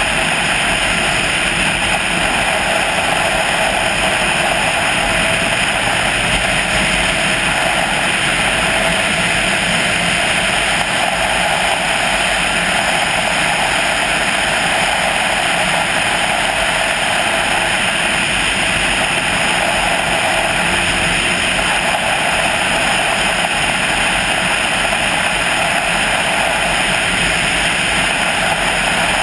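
Steady rush of wind and road noise from a vehicle driving along a highway at a constant speed, with no distinct engine note.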